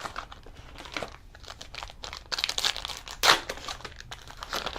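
Panini Prizm football trading cards being handled between picks: irregular crinkling and rustling, with a louder crinkle a little over three seconds in.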